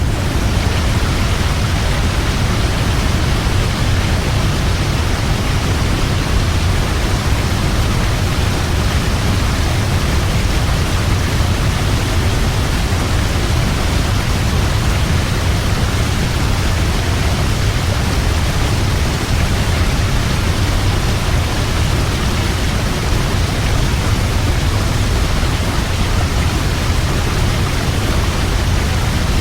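Large waterfall pouring steadily: a dense, unbroken rush of falling water with a strong deep rumble beneath the hiss.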